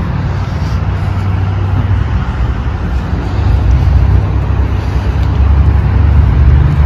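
Steady low rumble of road traffic, growing a little louder over the last few seconds.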